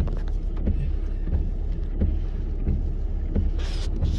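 Inside a Jeep Cherokee Trailhawk's cabin: a low steady engine rumble with the windshield wipers running, and a soft knock repeating about every two-thirds of a second.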